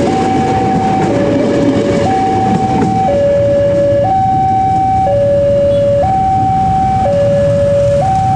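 Railway level crossing warning alarm sounding its two-tone signal, a higher and a lower tone alternating about once a second. Under it, the rumble of a passing electric commuter train fades over the first few seconds.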